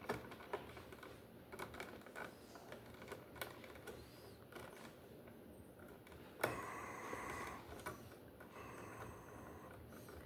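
Small clicks and taps of stripped copper wires and pliers being handled as the conductors are twisted together in a receptacle box. A sharper click about two thirds of the way in is followed by a brief high-pitched whine, and a second short whine comes near the end.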